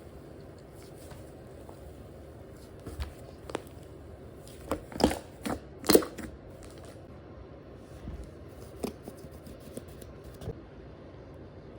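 Slime being handled: scattered short sticky clicks and pops, the loudest few coming close together about five to six seconds in.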